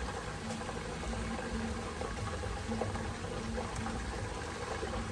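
Tomato sauce and tilapia simmering in a frying pan, a steady bubbling sizzle with a low hum underneath.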